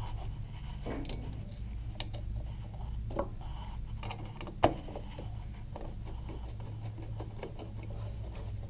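Scattered clicks and taps of a screwdriver and small panhead screws with lock washers being handled and driven into an LED light's mounting in a urethane landing-light housing, with one sharper knock about four and a half seconds in. A steady low hum runs underneath.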